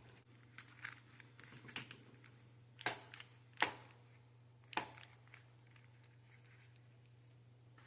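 Kryptonite Keeper 785 chain lock's metal barrel knocking against a bicycle frame, metal against metal. It makes a scattered run of light clinks with a brief high ring, the loudest three coming about three, three and a half and five seconds in.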